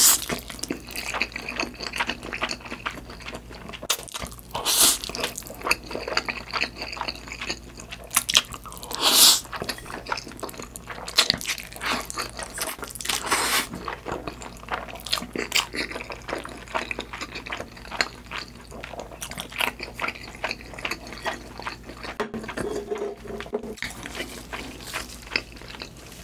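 Close-up eating sounds of thick, cheese-sauced mi goreng noodles being slurped and chewed: steady wet clicking and smacking, with a few louder bursts spread through.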